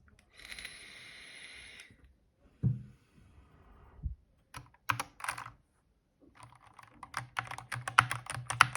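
Mechanical keyboard with stock switches being typed on: a few separate keystrokes, then fast, clattering typing in the second half. The switches are not yet lubed, which the owner says they need. A steady hiss sounds for about a second and a half near the start.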